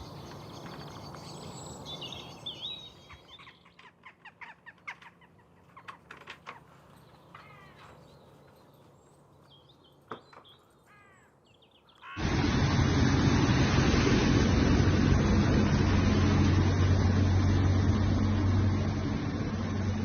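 Faint bird chirps and a few scattered clicks over a low background. About twelve seconds in, a loud, steady rushing noise with a low hum under it cuts in suddenly.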